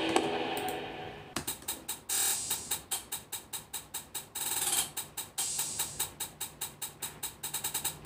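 Programmed hi-hat pattern playing back in FL Studio: crisp ticks about four a second, with quick rolls near the end. A synth chord fades out in the first second or so before the hats take over.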